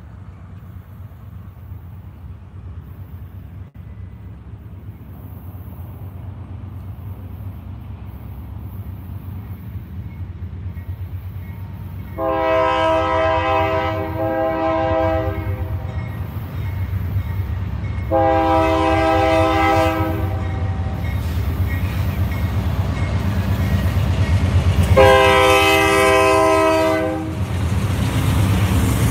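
Approaching Union Pacific diesel locomotives: a low engine rumble that builds steadily louder, cut by three long blasts of the locomotive's multi-note air horn, the first about twelve seconds in, the next two about six and seven seconds apart.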